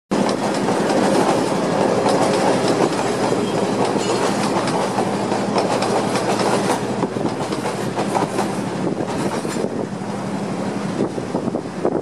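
Diesel-hauled passenger train passing close by on the coastal line: a steady engine drone under a dense clatter of wheels clicking over the rail joints, easing off a little in the last couple of seconds.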